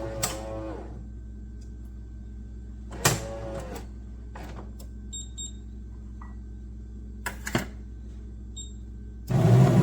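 Super-automatic espresso machine humming quietly, with a couple of clicks and faint beeps. Near the end its motor starts running loudly and steadily.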